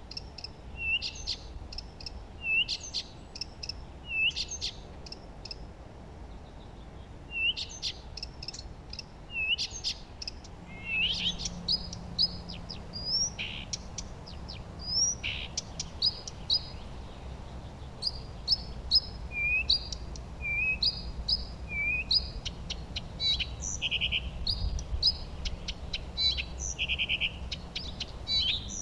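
Several songbirds singing and chirping, with overlapping quick high notes, short upward-hooked whistles and a couple of fast trills near the end.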